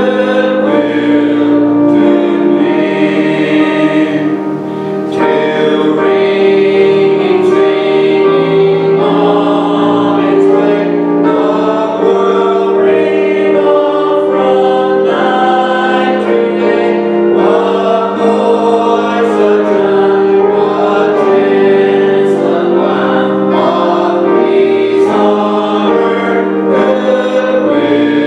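Congregation singing a hymn in unison, led by a song leader on a microphone, with piano and organ accompaniment.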